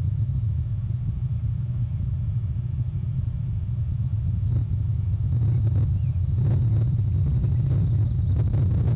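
Steady low rumble, a little louder from about six and a half seconds in, with a few faint light clicks over it.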